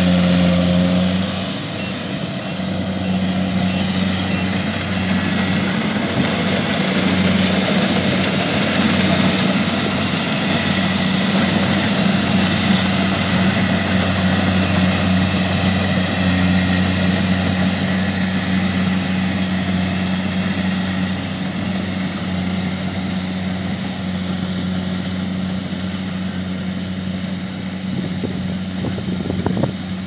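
Kubota DC70Plus rice combine harvester working in the crop: its diesel engine runs steadily under load along with the churn of the cutting and threshing gear, a continuous drone. The sound eases slightly toward the end as the machine moves farther off.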